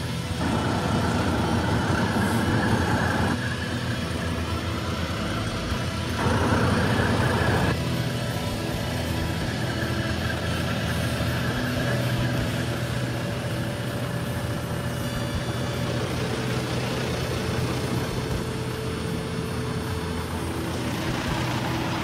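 Heavy-duty tow trucks' diesel engines running as they drive past: a steady low drone that swells louder twice, once for about three seconds near the start and again briefly about six seconds in.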